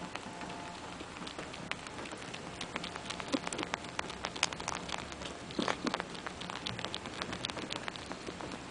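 Russian Blue cat suckling on another cat's belly: quick, irregular wet sucking and smacking clicks that come thickest in the middle. It is comfort nursing by a cat about ten months old, long past weaning.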